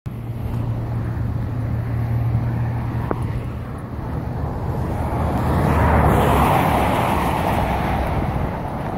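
Road traffic going past: a steady low engine hum, then a vehicle passing that swells to its loudest about two-thirds of the way through and fades away.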